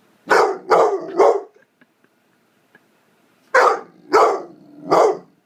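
Nine-month-old pit bull barking for attention: three quick barks, a pause of about two seconds, then three more.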